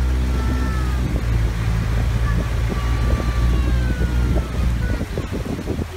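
Boat engine running steadily with a low drone, easing off about five seconds in.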